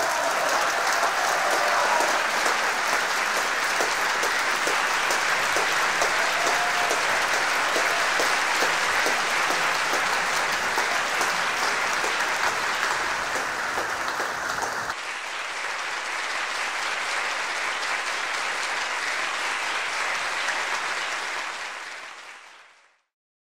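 Concert hall audience applauding steadily after a piano performance. The sound shifts and drops slightly about two-thirds of the way through, then fades out near the end.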